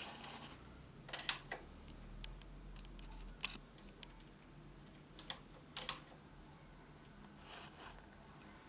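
Small, irregular metallic clicks of a multi-prong transfer tool (decker) against the latch needles of a Brother KH260 knitting machine as loops are hung onto the needles, with a soft rustle of yarn near the end.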